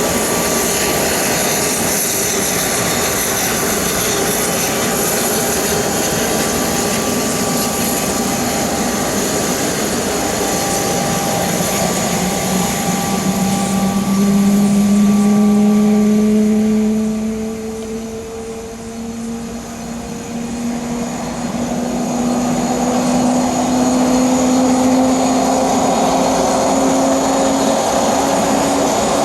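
Twin turbofan engines of a Cessna Citation Sovereign business jet running with a steady high whine and rush; from about halfway a low tone comes in and climbs slowly in pitch as the engines spool up for takeoff.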